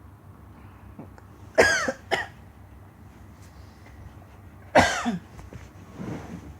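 A sleeping person's sudden loud throat noises, harsh and falling in pitch. Two come close together about a second and a half in, another about five seconds in, and a softer one near the end.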